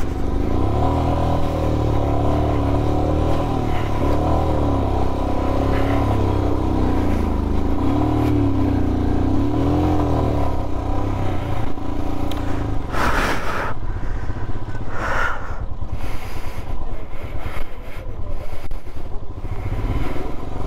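Motorcycle engine running at low speed on a rough gravel road, its pitch rising and falling as the throttle is worked, with the clatter of loose stones under the tyres. Two short louder sounds come about two-thirds of the way through.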